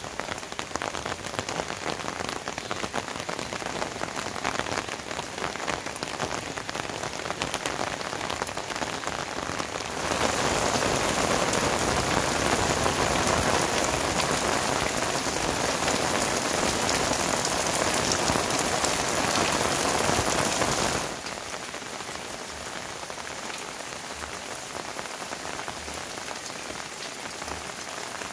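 Heavy rain falling, a dense steady hiss with a patter of drops. It turns louder and more even about ten seconds in, then drops back sharply about twenty-one seconds in.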